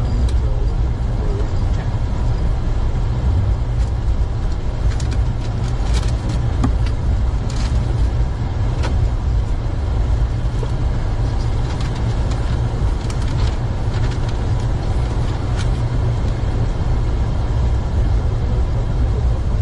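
Steady low rumble of an Airbus A400M's four TP400 turboprop engines heard inside the flight deck while the aircraft is on the ground after landing, with a few scattered light clicks.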